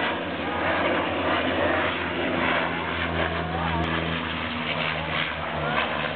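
Canadair amphibious water bomber's propeller engines humming steadily as the plane flies low overhead on its approach to a water drop.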